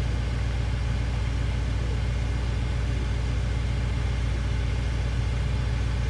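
BMW engine idling steadily with the air conditioning switched on, its compressor engaged.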